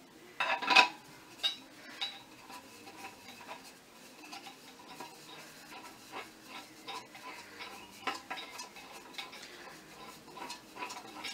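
Coat rack pole sections being screwed together on the stand, with clinking and scraping from the threads and fittings as the pole is twisted. A louder clank about half a second in, then a run of small irregular clicks.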